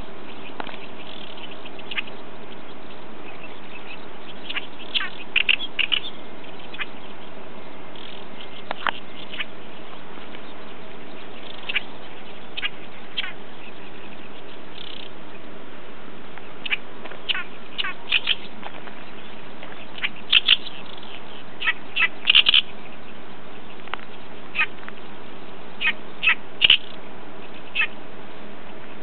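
An unseen bird calling repeatedly: short, sharp, high calls, some alone and some in quick runs of two to four, at irregular intervals.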